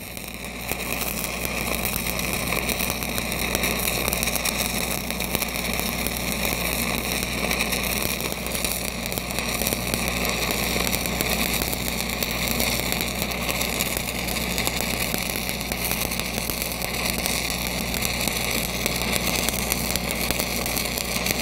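Stick-welding arc of a 3/16-inch 7010 pipeliner rod running a downhill cap pass, held at a short arc: a steady, dense crackle and sizzle. Under it is the steady low hum of an engine-driven welding machine running.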